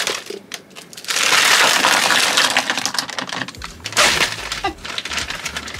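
Plastic freezer bag of frozen whole strawberries crinkling as it is handled and tipped, with the hard frozen berries knocking and clattering. The densest crinkling runs from about a second in to past the middle, followed by scattered clicks.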